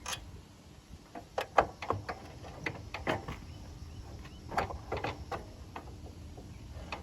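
Irregular metallic clanks and knocks as a motorcycle's silencer is worked loose from the exhaust and pulled off by hand, with the sharpest knock about a second and a half in.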